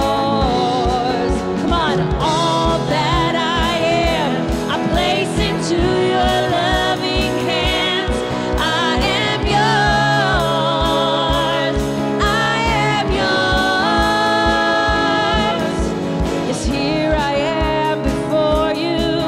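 Live worship band: two women singing the chorus over guitars and keyboard, with a steady low beat.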